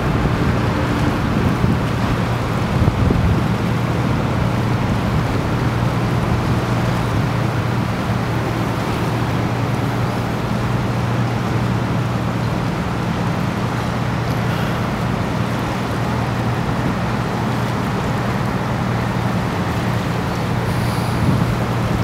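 Motor boat's engine running steadily under way, a low even hum, over a constant rush of water along the hull and some wind.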